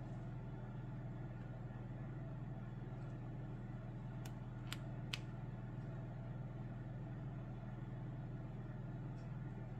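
Steady low electrical or mechanical hum, with three faint sharp clicks about halfway through.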